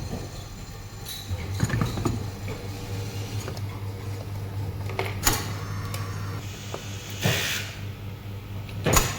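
Food waste disposer's motor switched on and running with a steady low hum, with a few sharp knocks and a short rush of noise near the end.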